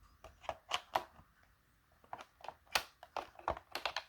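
Irregular light plastic clicks and taps, several a second and busiest in the second half, as a replacement battery pack is handled and slotted into a Dyson V10 stick vacuum.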